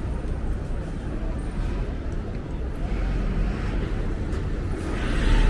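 City street ambience at night: a steady low traffic rumble with faint background voices, swelling louder near the end.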